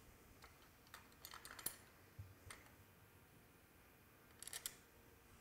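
Faint clicks and light metal taps of Remington 700 rifle parts being handled and fitted together as the bottom metal goes back on: a few scattered single clicks, then a quick cluster of clicks near the end.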